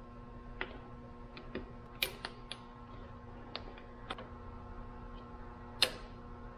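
Scattered light clicks and taps of a screwdriver working a hose and its clamp on an engine, irregular, the sharpest about two seconds in and again near the end. A faint steady hum lies underneath.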